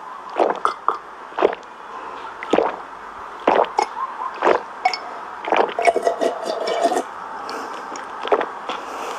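Close-miked gulping of a milk drink from a glass: a quick run of loud wet swallows, one to two a second, with squishy mouth sounds between them. A short slurping tone comes about six seconds in.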